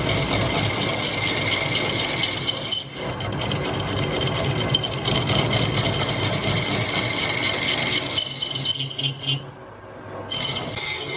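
Lathe running under machining, a steady mechanical noise with a low hum, a high steady whine and some rattling. The noise drops away for about a second near the end, then returns.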